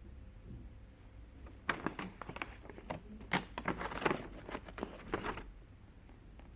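Paper crinkling and rustling in a dense run of crackles lasting about four seconds, as a handmade paper advent calendar is opened.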